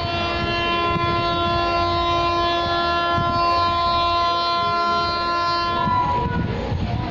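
WAP-7 electric locomotive's air horn held in one long steady blast that stops about six seconds in, over the rumble of an express train passing at speed.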